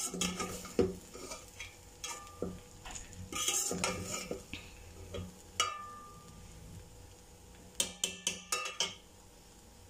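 Metal slotted spoon stirring freshly cooked rice in a metal degchi, scraping and knocking against the pot, with a quick run of clinks near the end.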